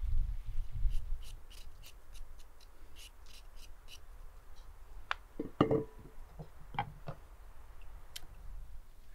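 Y-shaped vegetable peeler scraping down a carrot in quick, even strokes, about four a second, then a few sharp knocks a couple of seconds later.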